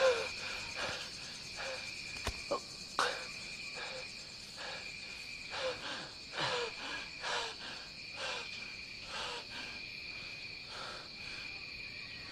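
Night rainforest ambience: a steady, high drone of crickets and other insects, with short falling chirps from some animal about once a second and a couple of sharp clicks near the start.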